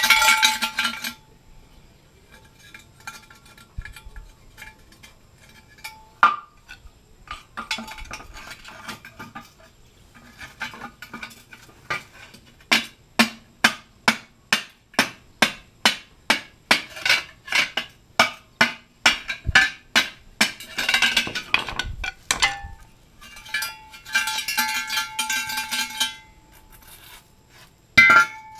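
A tool clanking and scraping inside a catalytic converter's steel shell as the ceramic honeycomb core is broken out to gut it. In the middle comes a fast run of sharp metallic strikes, about three a second, with scraping rattles before and after.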